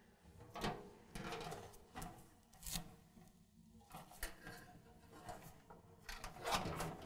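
A black protective sheet being pulled off a metal camp stove's lid and wind panel: faint scattered rubbing and rustling with a few light knocks, a little louder near the end.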